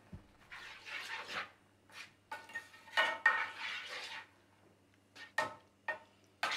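A nylon spoon scraping and knocking against a metal roasting tray while stirring a liquid pan sauce, in several strokes, then a few short knocks near the end.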